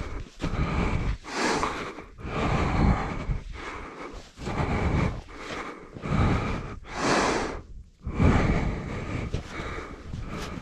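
A climber breathing hard from the exertion of climbing steep snow, loud panting breaths in and out about once a second.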